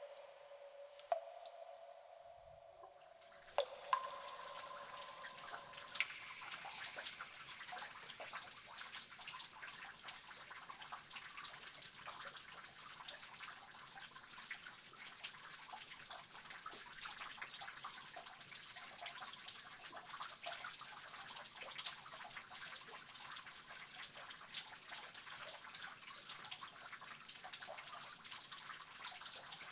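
Water dripping and trickling in a cave: many small drops falling over a steady wash of running water. In the first few seconds a few single drops ring out with clear tones before fading.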